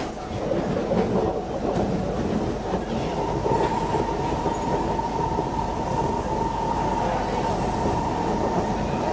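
Inside a Siemens C651 metro train car under way: the steady rumble of the wheels and running gear, with a steady high tone coming in about three seconds in and holding on.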